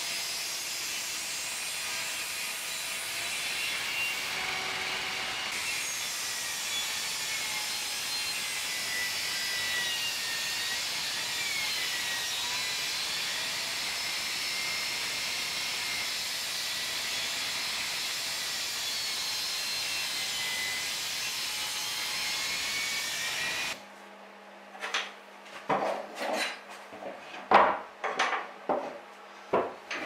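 Table saw running steadily while it cuts thin wooden slats, with a faint shifting whistle over the blade noise. About three quarters of the way through it gives way to a series of sharp wooden knocks and taps as slats are handled and fitted.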